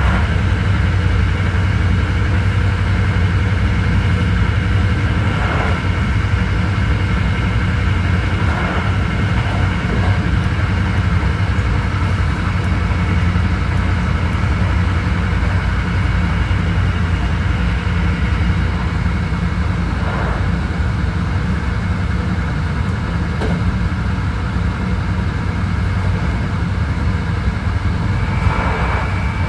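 Hankyu 9300 series electric train running at a steady speed, heard from inside the passenger car: a steady rumble of wheels on rail under a steady motor whine, with a few brief knocks. Near the end a new steady tone starts up.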